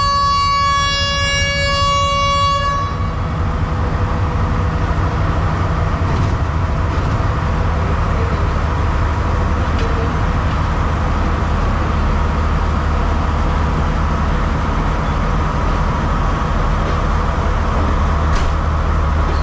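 Train horn sounding one long blast that ends about two and a half seconds in, followed by the steady low rumble of the diesel locomotive as the train gets under way.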